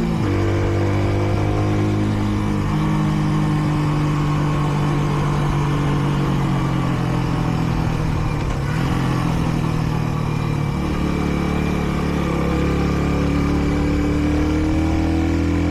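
Kreidler Dice CR 125 motorcycle engine pulling along on the road, its note stepping down a few times as the revs change, over a steady rush of riding noise. The bike is still in its run-in period.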